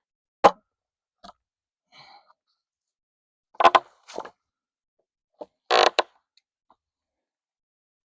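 A scattering of short knocks and clatters, about seven, with quiet between them; the loudest is about half a second in and the longest, a brief rattle, comes about six seconds in.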